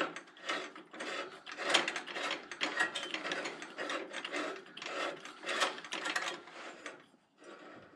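A 1-pound propane cylinder being screwed by hand into a portable gas grill's regulator: a long run of rapid ratchety clicking and scraping as the threads turn, stopping about seven seconds in.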